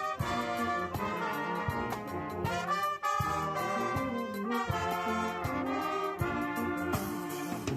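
Background music with brass, trombone and trumpet, over a steady beat.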